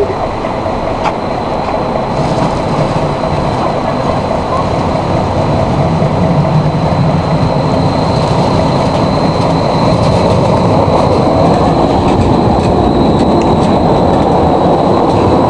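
Two Stuttgart Stadtbahn DT 8.12 light-rail trains running side by side on the track, approaching and passing close by. Their rumble on the rails grows louder over the first ten seconds or so, then holds, with a thin steady high whine above it.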